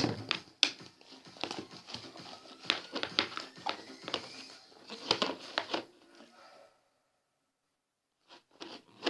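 Thick, sticky slime being stirred in a bowl, giving rapid irregular wet clicks and crackles that cut off into silence about two-thirds of the way through.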